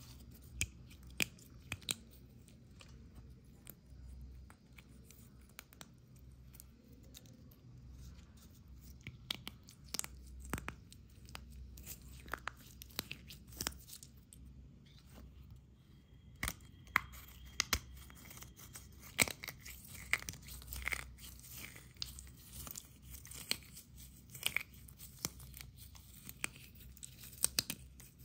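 Dry, brittle flakes crunched and crumbled between the fingers: irregular crisp crackles and snaps, growing busier from about halfway through.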